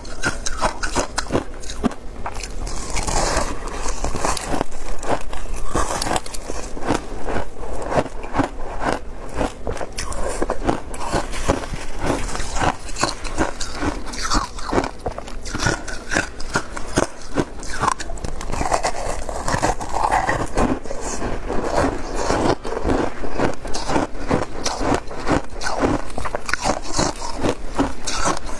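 Close-miked biting and chewing of compacted shaved ice coated in passion fruit pulp: a dense, continuous run of crisp crunches and crackles.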